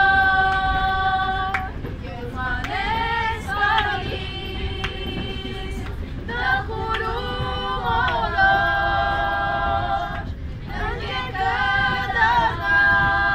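A small group of young women singing together unaccompanied, holding long notes between shorter wavering phrases, over the steady low rumble of the train carriage.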